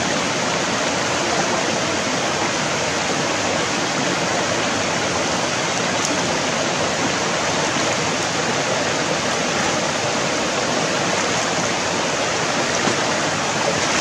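Shallow rocky stream running: a steady rush of water.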